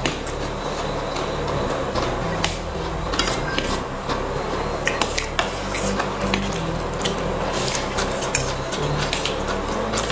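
Steel spoons and forks clinking and scraping against stainless steel plates while eating noodles, in sharp irregular clinks a few times a second.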